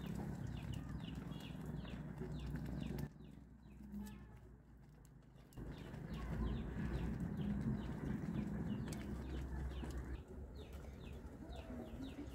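Chickens peeping in quick short high calls, several a second, over a low steady rumble. Everything goes quieter for a couple of seconds about three seconds in, then picks up again.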